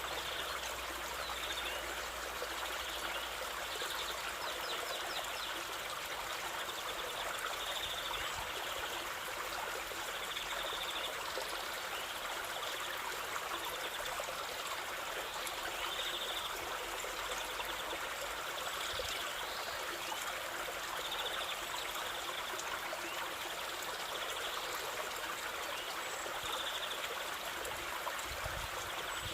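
Stream water flowing steadily, with a bird's short high call repeated every couple of seconds.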